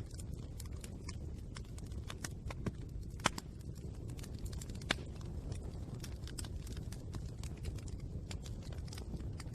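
Fire crackling: irregular small snaps and clicks over a steady low rush, with two louder pops about three and five seconds in.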